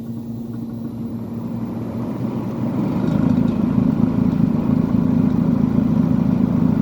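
Kenmore (Whirlpool) 10,000 BTU window air conditioner running, with a steady hum at first. About three seconds in, the rush of air blowing out of its vent grows louder and stays loud.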